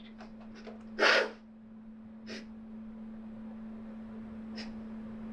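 A man crying, with sharp sniffing breaths: a loud one about a second in, then two fainter ones, over a steady low hum.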